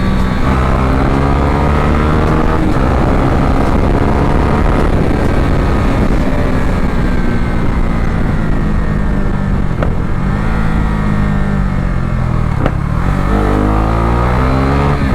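KTM RC 390's single-cylinder engine under way, its pitch falling and rising as the rider backs off and accelerates, then pulling up sharply near the end.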